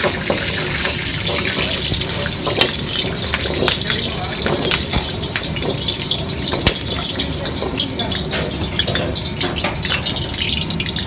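Steady rush of running water at a commercial wok station while a carbon-steel wok is rinsed and scrubbed with a bamboo wok brush, with frequent scrapes and clanks of metal on metal.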